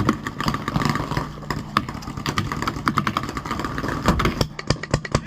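Paintball markers firing, a scatter of sharp pops at uneven intervals that comes thickest near the end, over a steady low hum.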